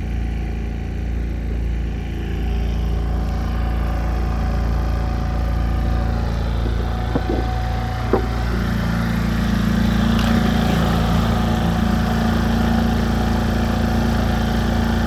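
Mercury four-stroke tiller outboard motor running steadily, pushing a small boat through the water. About eight seconds in there are two short clicks, and then the engine's note grows louder.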